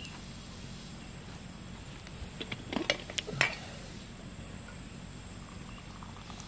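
A metal kettle being lifted and its lid taken off: a few sharp clinks and knocks between about two and three and a half seconds in, over a steady faint background.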